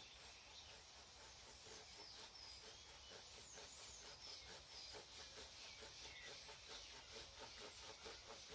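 Faint handsaw cutting through very hard orange-tree (citrus) wood in a steady rhythm of back-and-forth strokes, with a few bird chirps over it.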